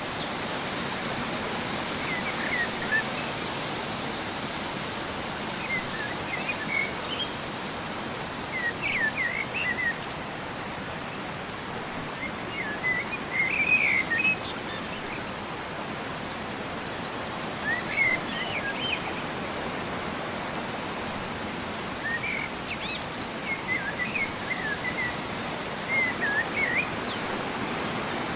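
Steady rush of flowing water, with birds chirping in short quick clusters every few seconds over it.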